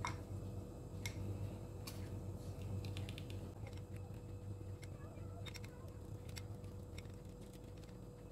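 Scattered light clicks and taps, a quick run of them about three seconds in, over a steady low hum.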